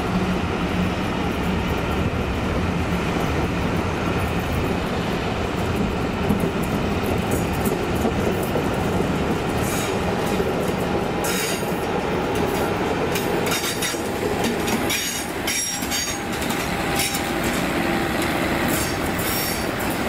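Diesel-hauled passenger train passing on a curve: the coaches' wheels rumble along with repeated sharp clicks over rail joints, and a Class 50 diesel locomotive goes by at the rear about halfway through.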